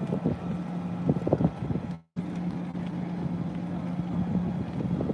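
A steady low mechanical drone, like an engine running, over wind rumbling on the microphone, with scattered crackles and pops from the burning building. The audio cuts out completely for a moment about two seconds in.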